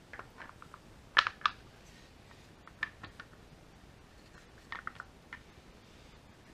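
GM LS7 hydraulic roller lifters and their plastic lifter tray clicking and tapping as they are handled and fitted together, going into the lifter bores of an aluminium LS engine block. Scattered light clicks in small clusters, the loudest pair about a second in.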